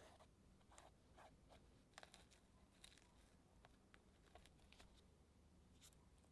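Faint, soft dabbing and scratching of a paintbrush working thick black paint into a textured paper journal page, with a few short strokes in the first two seconds. After that come only a few faint ticks and taps as a glue bottle and fingertips touch the page.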